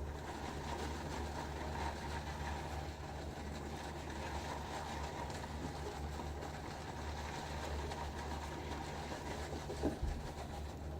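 Badger shaving brush swirling soap lather in a bowl, a soft continuous swishing, over a steady low hum.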